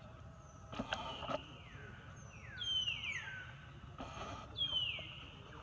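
A string of high, whistle-like animal calls, each sliding quickly downward in pitch, about half a dozen in all, the loudest near the middle. A few short clicks or rustles come between them.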